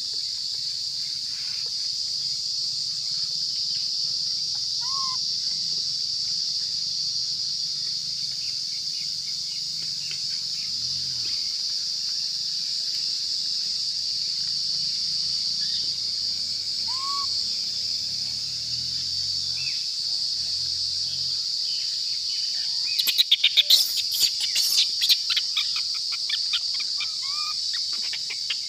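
Steady high-pitched drone of an insect chorus, with a few short bird chirps. About two-thirds of the way in there is a run of loud rapid clicks lasting a few seconds.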